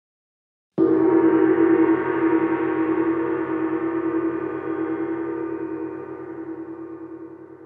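A gong struck once just under a second in, ringing on with a wavering, pulsing tone that slowly fades.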